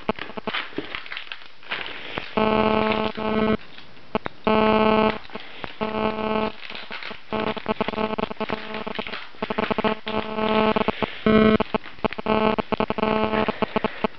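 Rigid plastic packaging being sawn and pried at with a knife, giving rapid irregular clicks and cracks, broken by about seven short buzzes at one steady pitch.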